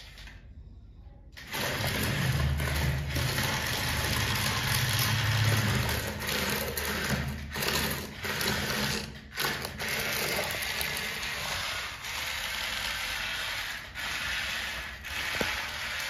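Battery-powered toy excavator running, its small electric motor and plastic gears whirring. It starts about a second and a half in and drops out briefly a few times.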